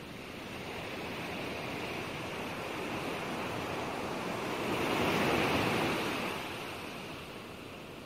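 Sea waves washing in, a steady rushing that swells to a louder surge about five seconds in and then eases off.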